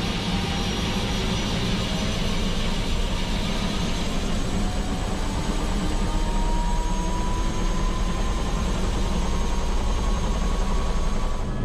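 Airbus H125 (AS350 B3e Esquilo) helicopter running with its Safran Arriel 2D turboshaft at flight power: steady rotor and turbine noise, with a thin whine that rises slowly in pitch through the middle.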